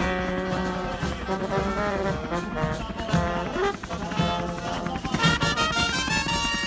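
Brass band music: held brass notes over a regular bass beat.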